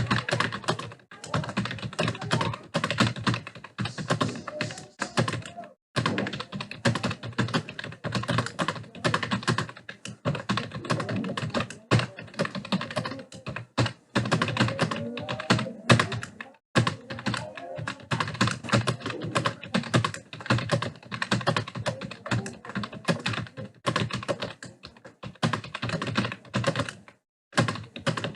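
Fast, continuous typing on a computer keyboard, the rapid keystrokes of a timed speed-typing test, broken by brief pauses about six seconds in, around the middle, and near the end.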